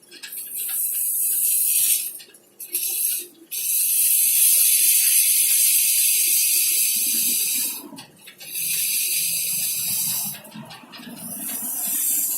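A loud, high hiss that runs in long stretches of a few seconds each, breaking off briefly four times.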